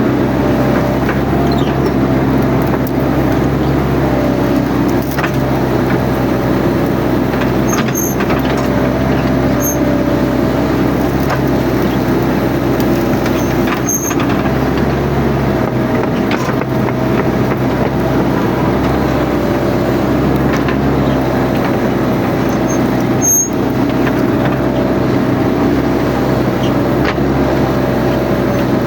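Mini excavator's diesel engine running steadily while it works, with a slightly wavering hum from the machine and a few sharp clicks and knocks.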